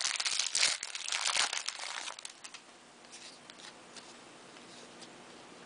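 Wrapper of a football trading-card pack crinkling and tearing as it is ripped open, busy for about two seconds, then fading to faint rustles.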